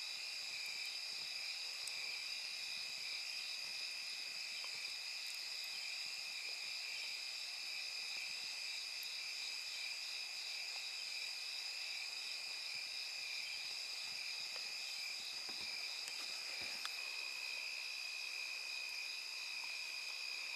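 Steady night chorus of insects: a continuous shrill chirring held at two or three pitches. A few faint crackles come from a small wood campfire.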